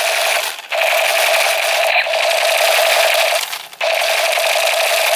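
Battery-powered toy gun firing, a continuous rattling, buzzing sound with a steady tone. It breaks off briefly about half a second in and again near three and a half seconds, then starts straight back up.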